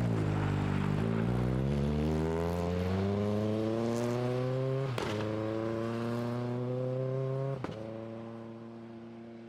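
Rally car engine accelerating hard, its pitch climbing steadily, with a sharp crack at each of two upshifts, about five seconds in and again near the end. After the second crack the sound fades as the car pulls away.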